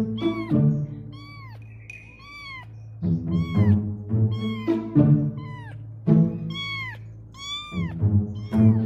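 Kittens meowing over and over in short calls that rise and fall in pitch, over background music with a steady low bass line.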